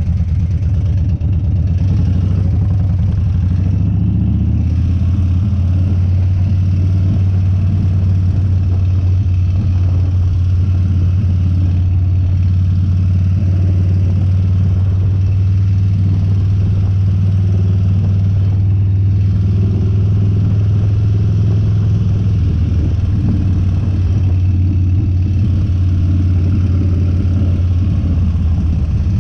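Harley-Davidson Dyna's V-twin engine and exhaust running steadily at a low, even pitch while riding, with small rises and falls in engine speed.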